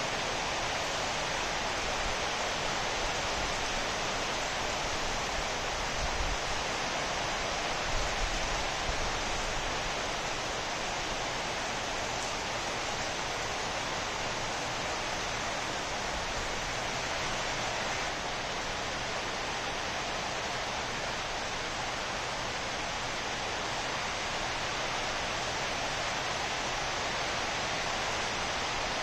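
Steady rainfall, an even, unbroken hiss of rain.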